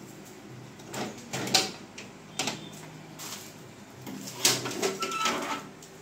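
Handling noise on the opened copier: a handful of short, sharp knocks and clicks, irregularly spaced about a second apart.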